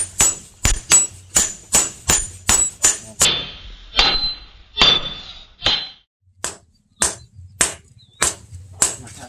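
Hand hammer forging a red-hot steel knife blade on an anvil: quick even blows, about three a second, then slower blows with a bright metallic ring. After a short pause about six seconds in, steady blows resume at about two a second.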